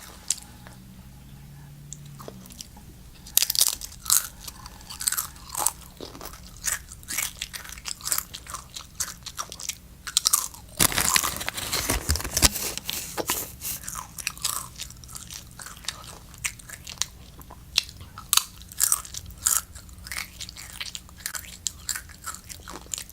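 Doritos tortilla chips being bitten and chewed: a run of crisp crunches that begins a few seconds in and is thickest and loudest around the middle.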